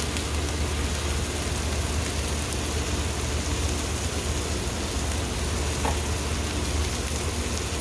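Courgette flowers and sliced onions sizzling steadily in olive oil in a frying pan, with a steady low hum underneath.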